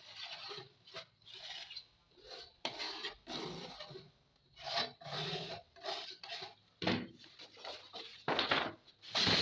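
Irregular rubbing and scraping strokes on a wooden speaker cabinet as paper covering is glued on and pressed down by hand.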